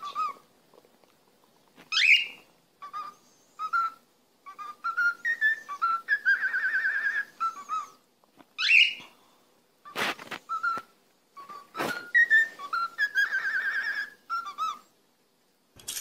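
Cockatiel whistling a tune: a phrase of warbling whistled notes that opens with a sharp rising swoop, whistled twice. Two sharp clicks come in the second phrase.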